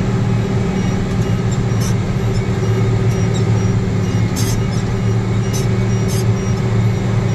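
Heavy diesel mining machinery running steadily with a deep drone, with a few short sharp metallic clacks, about 2, 4.5, 5.5 and 6 seconds in.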